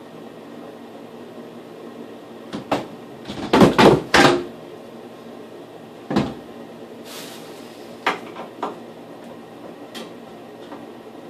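Knocks and clunks of things being handled at a bathroom sink and vanity: a couple of light knocks, then a loud cluster of clunks about three and a half seconds in, and scattered single knocks after. A steady hum runs underneath.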